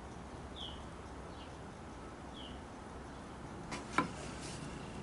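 Faint squeaks of a mechanical pencil tracing marks on construction-grade lumber around a wooden template, three short falling squeaks, then a couple of light wooden knocks near the end as the template is shifted on the boards.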